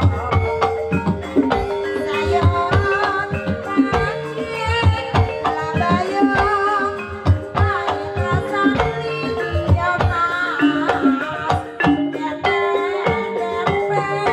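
Live Javanese jaranan music: kendang hand drums playing a dense, driving pattern over gamelan kettle gongs, with a sustained middle note and a wavering melody line above.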